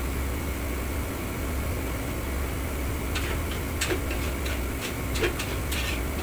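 Steady hum of commercial kitchen fans and burners. From about halfway there is a quick run of sharp metallic clinks and scrapes as a metal utensil works in a steel wok.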